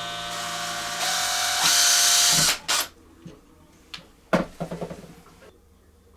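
Power drill running and boring a hole, the motor whine joined by louder cutting noise about two seconds in, then cutting off at about two and a half seconds. A couple of sharp knocks follow.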